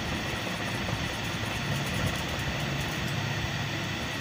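Steel thread-trimmer cutter blade of a Juki buttonhole machine scraping back and forth on a flat metal file, being sharpened because it no longer cuts the bobbin thread cleanly, over a steady low hum.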